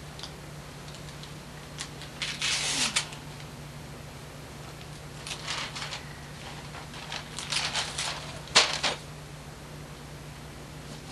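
Wrapping paper being torn and crinkled in several short rustling bursts, with one sharp snap about two-thirds of the way through, over a faint steady low hum.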